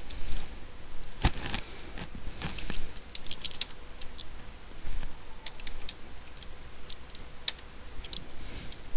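Typing on a computer keyboard: irregular keystroke clicks in short runs with pauses between them.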